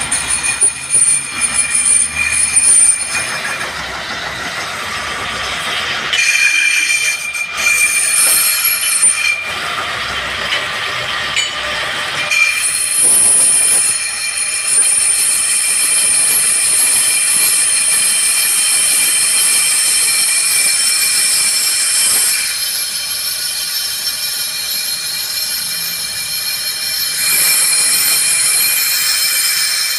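Lathe skimming a Maruti Suzuki Swift rear brake drum: the cutting tool shaves the spinning drum's braking surface with a loud, high-pitched metallic squeal that shifts in pitch and strength a few times as the cut goes on.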